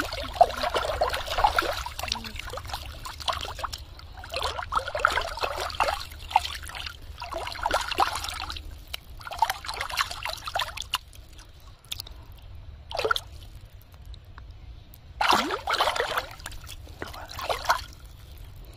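A hooked fish thrashing at the water surface, splashing in irregular bursts of a second or two, with water sloshing and trickling between them. Two short, sharp splashes come near the end.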